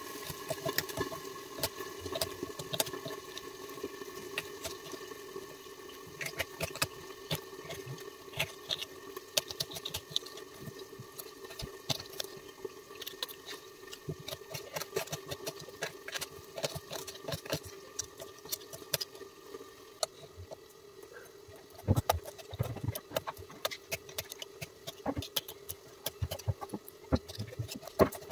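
Small kitchen knife peeling and cutting onions, then chopping green chillies on a bare stone countertop: scattered clicks and scrapes, turning into quicker, louder knocks of the blade on the stone near the end. A steady appliance hum runs underneath and stops about two-thirds of the way through.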